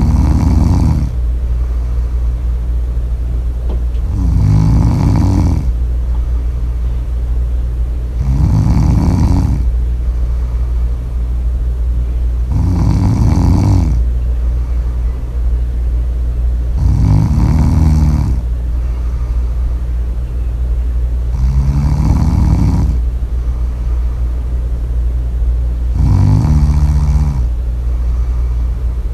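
Loud snoring: a slow, regular series of rough snores, one about every four to four and a half seconds, over a steady low hum.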